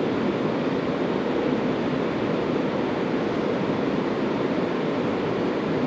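A steady, even rushing noise with no pitch or rhythm to it, deepest in tone.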